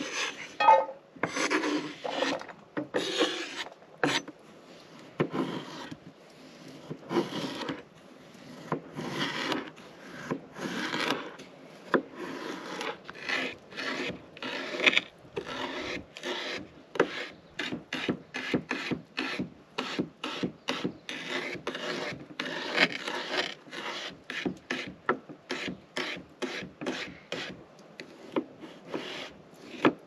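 Chef's knife cutting potatoes on a wooden cutting board. The strokes are slower and longer, scraping through the first half, then turn to quick chops of about two or three a second.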